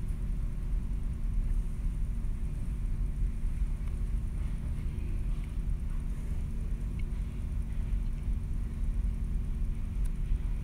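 Steady low hum and rumble of indoor ventilation machinery, with a faint steady tone over it.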